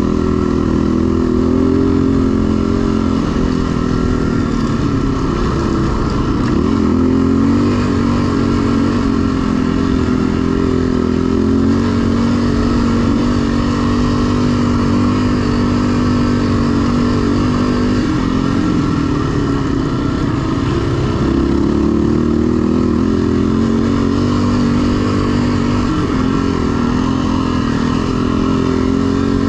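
Enduro motorcycle engine running under load, its pitch dipping and rising again several times as the throttle is eased and opened.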